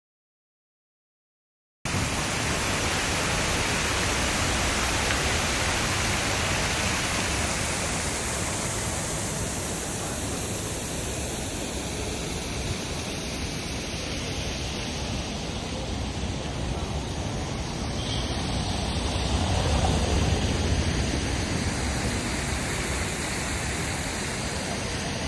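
A cut of dead silence for about two seconds, then a steady, even rushing wash of outdoor street ambience, swelling slightly with more low rumble about three quarters of the way through.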